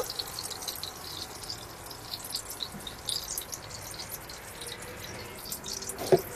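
Water running from a kitchen tap into a stainless-steel sink, a steady hiss with scattered light crackles.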